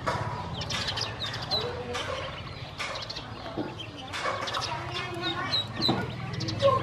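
A group of domestic ducklings peeping in short, high chirps while they peck at feed, with scattered sharp clicks of beaks against the feed bowl.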